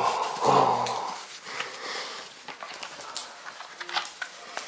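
A short low voice-like sound in the first second, then a small dog in a plastic cone collar moving about close by: sniffing and snuffling with scattered soft clicks and knocks.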